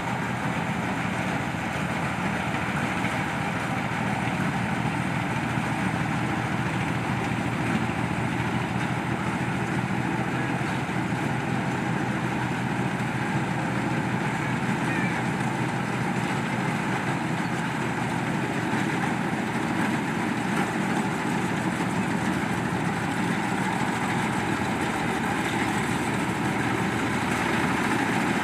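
Crown Hornet 7130 mini rice combine harvester running steadily.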